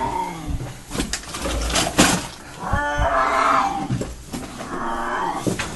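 Cornered feral tom cat yowling in several long, drawn-out growling calls, with sharp knocks and bumps between them.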